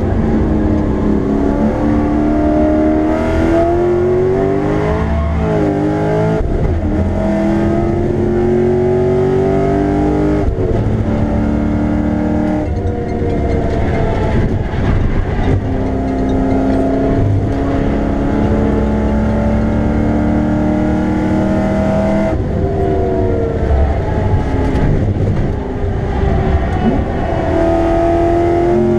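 Chevrolet Camaro engine heard from inside the cabin, driven hard on a race track. Its pitch climbs under acceleration and drops suddenly several times, as at gear changes.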